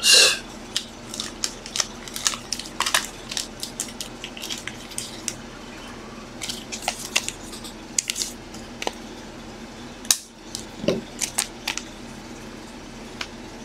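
Trading cards in plastic sleeves and hard toploaders being handled and set down on a tabletop: a string of light, irregular plastic clicks, taps and small scrapes.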